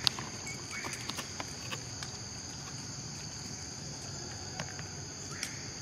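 Steady high-pitched insect drone, with a few faint scattered clicks.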